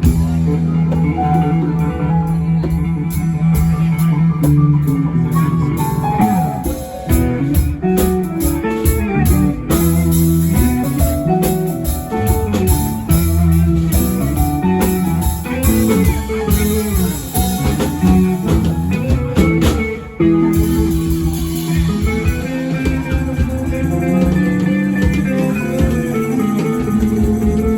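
Live band playing an instrumental passage: guitar over bass and drums.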